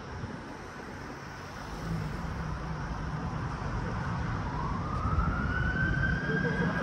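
Road traffic running, getting louder about two seconds in, with an emergency vehicle siren wailing upward in pitch over the last couple of seconds.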